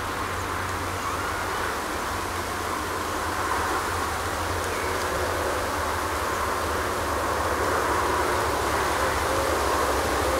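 Steady outdoor background noise: an even hiss over a low rumble, with no crossing bell, growing slightly louder over the last few seconds.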